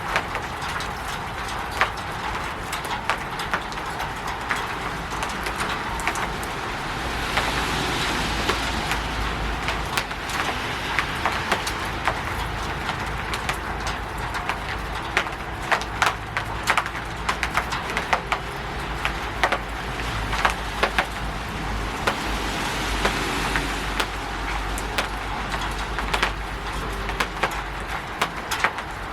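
Rain falling on a roof: a steady hiss with many separate drips tapping and splatting on hard surfaces. A low rumble runs underneath from about a quarter of the way in until near the end.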